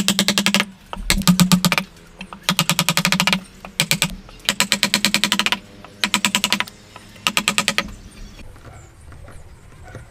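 Handsaw cutting wood in six short strokes, each a rapid run of ticks, with brief pauses between strokes.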